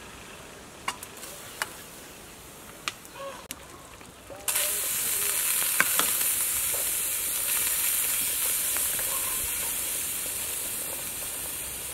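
A few light metal clinks of a ladle against the pot and bowl as soup is served. About four and a half seconds in, a loud steady hiss starts suddenly and slowly fades.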